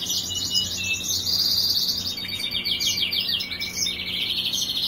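Caged European goldfinches singing: a continuous run of quick, twittering trills.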